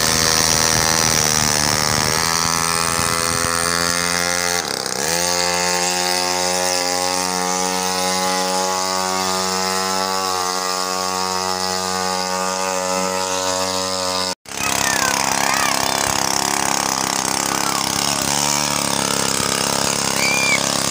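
Small brush-cutter engine on a homemade motorized bicycle running at a steady high pitch, dipping briefly and picking back up about five seconds in. It cuts out abruptly about two-thirds through, then carries on rougher.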